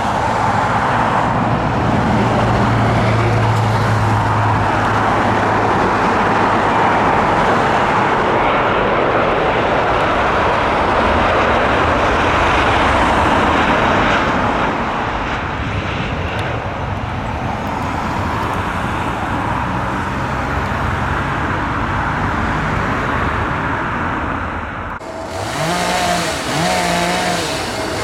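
Large jet airliner's engines running loud as the aircraft passes on the runway, a steady rushing noise that eases slightly about halfway through. About twenty-five seconds in it cuts abruptly to a quieter sound with a faint wavering whine.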